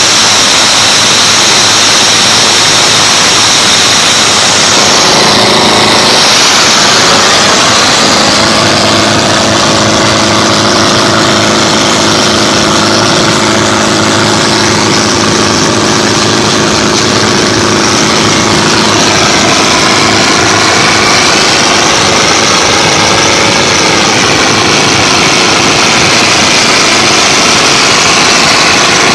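Wooden pompong motorboat's inboard engine running hard and steadily, heard from on board over the rush of spray and wake off the hull at speed.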